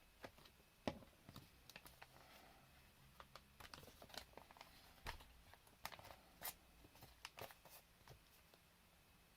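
Faint handling of thin card: scattered light taps, clicks and short rustles as glued card pieces of a star lantern are held and pressed together.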